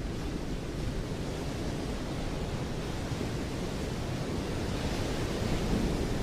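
Steady rushing noise with no pitch, swelling slightly near the end.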